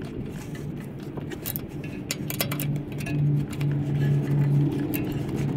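Metal wrench clicking and clinking on a flange bolt in short irregular ticks, over a steady low hum.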